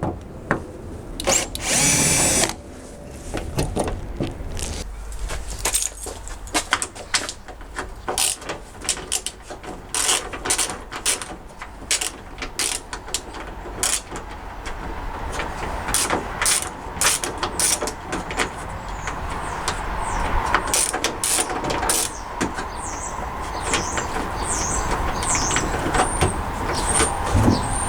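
Door handle retaining screw being undone with a driver: repeated irregular clicks of tool and metal, a loud scrape about two seconds in, and a faint steady whirr building in the second half.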